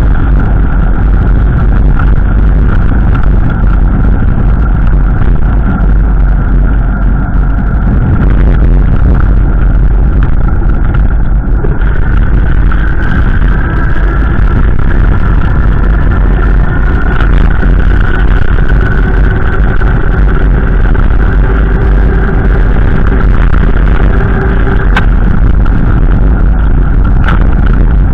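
Strong wind buffeting the microphone: a loud, steady, deep rumble with no break.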